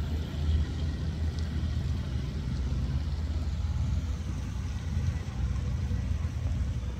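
Wind buffeting the camera's microphone: a steady low rumble that wavers in strength.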